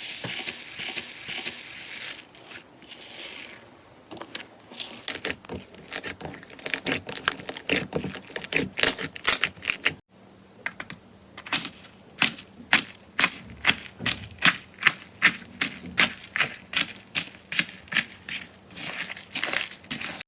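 Slime being squeezed and pressed by hand, giving a rapid series of crisp pops and crackles. Midway the sound cuts and starts again, with the pops then coming in a fairly even run of about two or three a second.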